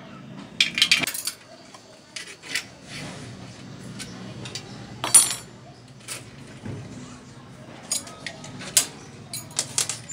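Scattered metallic clinks and knocks of a spanner and the rusty rear stand of an old bicycle as the stand is unbolted and lifted off, the loudest knock about five seconds in.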